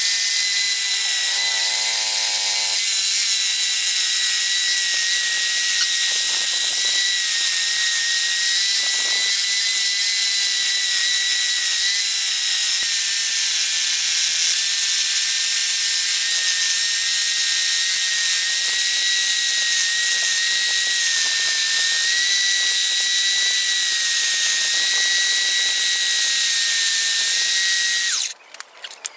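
Homemade scroll saw running as its blade cuts wooden letters, a steady high-pitched whine over a rasping hiss. The sound cuts off suddenly near the end.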